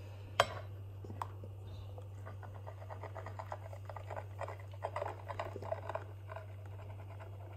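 Steamed milk pouring from a stainless-steel frothing jug into a mug of coffee, a faint irregular crackle and patter of the foamed milk. A sharp click about half a second in.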